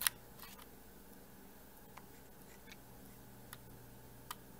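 Small plastic clicks and taps of a microSD card being pushed into a camcorder's card slot and fingers handling the slot cover: one sharp click at the very start, then several faint scattered clicks.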